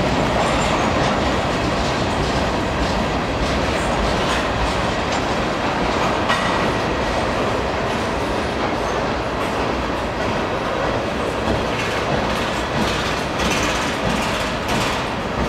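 Freight train tank cars rolling past close by: a steady rumble of steel wheels on rail, with clicks as the wheels cross rail joints, more of them near the end.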